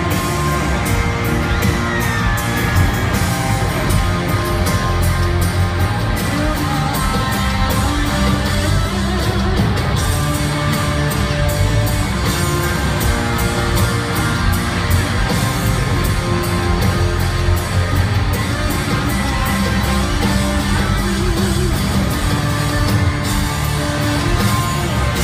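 Live country-rock band playing loud through a stadium PA, electric guitars over a steady drum beat, heard from within the crowd.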